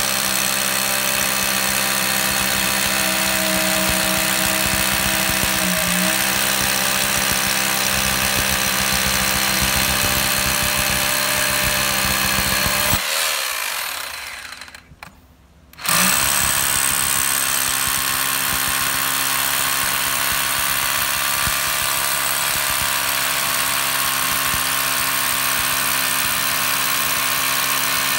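Dong Cheng corded impact drill hammer-drilling a masonry bit into a concrete block, running steadily at full speed. About halfway through, the trigger is let go and the motor winds down to a stop. Nearly three seconds later it starts again and drills on.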